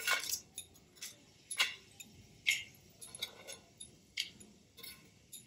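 Mustard seeds popping and crackling in hot oil in a steel kadhai: sharp, scattered pops about once a second, with a faint sizzle.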